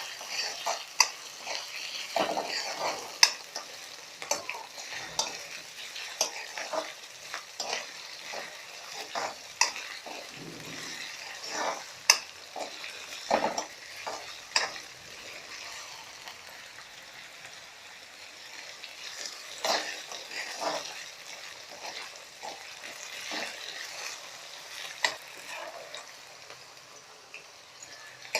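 Diced potatoes, onion and green chilli sizzling in hot oil in a kadhai while being stirred, with frequent irregular clinks and scrapes of the stirring utensil against the pan.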